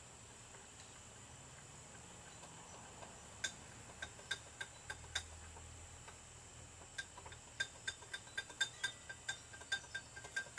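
Light, irregular clinks of metal or glass, each with a short ring, starting about three and a half seconds in and coming quicker toward the end. Under them a faint steady high drone of night insects.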